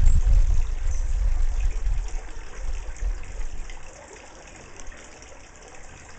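Low, gusty rumble of wind buffeting the microphone, dying away about four seconds in to a faint steady hiss.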